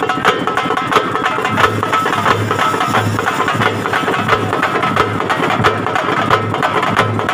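Festival drum troupe playing fast, dense, continuous drumming on a barrel drum and hand-held frame drums, with a deeper pulsing beat coming in about a second and a half in.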